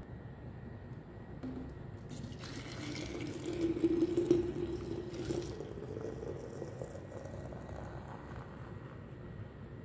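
Hot coffee poured in a thick stream through a strainer into a stainless-steel flask, starting about two seconds in and loudest around the fourth second. A hollow note under the splash rises slowly in pitch as the flask fills.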